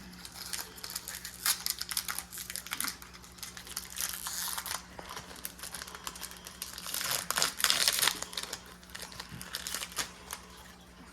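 Plastic and foil packaging crinkling and rustling in irregular bursts with small clicks, as Pokémon card packs and sleeves are handled; the loudest crinkling comes about seven to eight seconds in.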